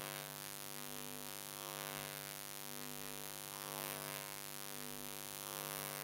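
Steady electrical mains hum with a buzz of evenly spaced overtones, under faint soft swells of rubbing as a board duster wipes chalk off a chalkboard.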